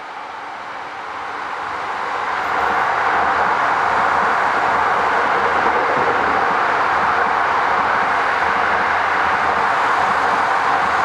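Freight train rolling past, wheels rumbling on the rails. It grows louder over the first couple of seconds, then holds a steady loud rumble.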